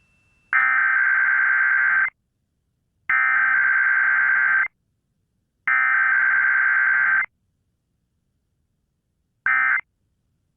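Emergency Alert System SAME digital header: three bursts of a raspy, buzzing data tone about a second and a half each, a second apart, sending the coded test message. Near the end, after a longer pause, a short burst follows, the first of the end-of-message bursts.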